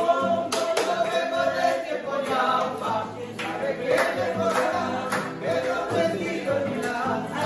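Live music for a gato, an Argentine folk dance: acoustic guitar and drum, with several voices singing together and sharp drum beats.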